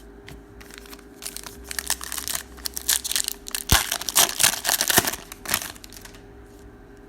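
A plastic-foil trading card pack wrapper being torn open and crinkled by hand, with crackling that builds and is loudest about two-thirds of the way through, then stops.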